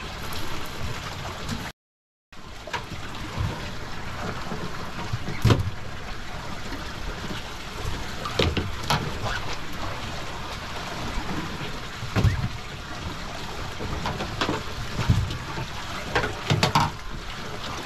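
Water sloshing and gurgling against a boat's hull, with scattered sharp knocks. The sound cuts out completely for about half a second near the two-second mark.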